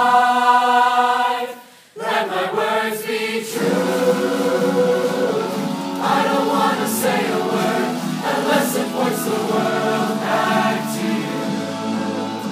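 A large mixed-voice youth choir singing in harmony. A held chord cuts off about two seconds in, and after a brief pause the full choir comes back in and keeps singing.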